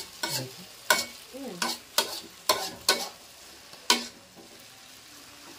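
A spatula strikes and scrapes a wok while noodles are stir-fried, with about eight sharp, irregular clanks over a faint sizzle. The clanking stops for the last second or so.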